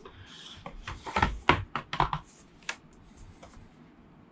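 A large cardboard game board being lifted and handled: a scatter of light knocks and taps, with some cardboard rubbing.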